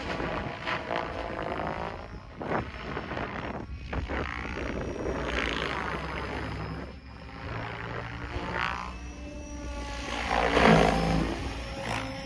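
Protos 770X Evo electric RC helicopter in flight: the rotor blades' buzzing whoosh swells and fades several times as it passes back and forth, loudest near the end.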